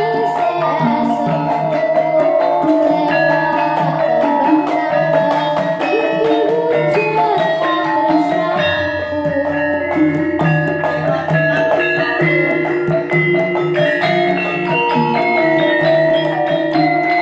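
Javanese gamelan ensemble playing: struck metal gongs and kettle-gong or metallophone notes ringing on and overlapping in a steady flow of music. A deep low tone comes in a little past halfway and holds.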